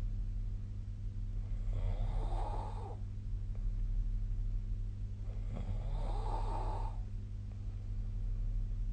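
A sleeping person snoring: two snores about four seconds apart, each lasting about a second, over a steady low hum.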